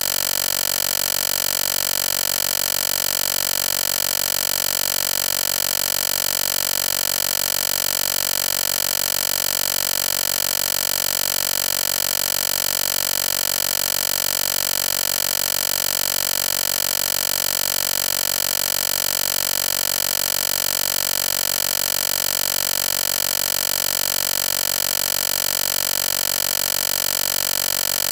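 A steady, unchanging electronic buzz and hiss that switches on abruptly, like a stuck audio glitch or static on the soundtrack.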